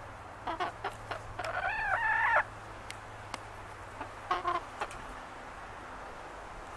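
Chickens calling: a few short clucks, then a louder wavering call about a second long, then more short clucks a little after four seconds in.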